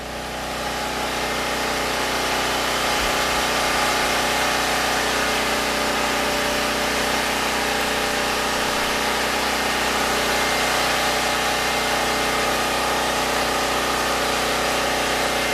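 Predator 6500 generator's single-cylinder engine running steadily under a light load, growing louder over the first second or two and then holding level.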